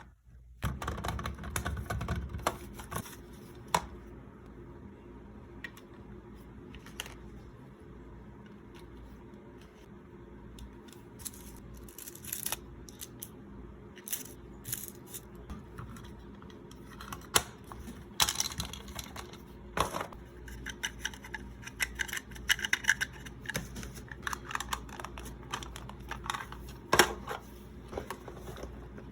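Small plastic toy pieces and packaging being handled close to the microphone: irregular clicks, taps and rustles, with a fuller rustle about a second in.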